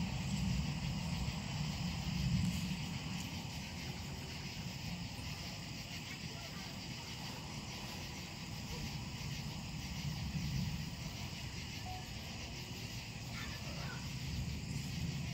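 Distant thunder rumbling low, loudest in the first few seconds and swelling again about ten seconds in, over a steady chirring of night insects.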